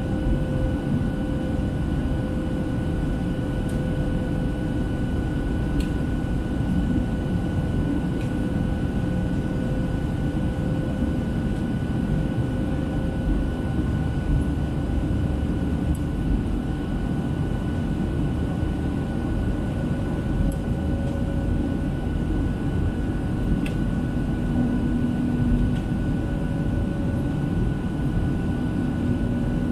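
Steady in-cabin noise of a Boeing 737-700 climbing after takeoff: a dense rumble of airflow and CFM56-7B engines, with a steady whine of fan tones above it. A lower hum joins in about three-quarters of the way through.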